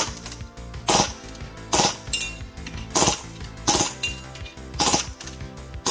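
Action Army AAP-01 gas blowback airsoft pistol firing on full auto in short bursts, about one burst a second, each a quick metallic rattle of shots and slide cycling with a popping sound. Background music plays underneath.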